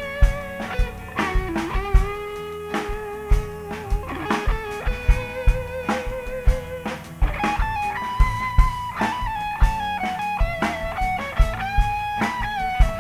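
Live blues-rock band playing a slow instrumental passage: an electric guitar plays a lead line of held notes that bend and waver, over a drum kit with a steady kick-drum beat.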